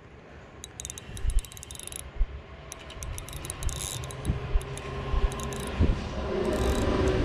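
Spinning reel being cranked to reel in a hooked fish: a run of quick light clicks from the reel, over low thumps from the rod and hands. The sound grows louder near the end.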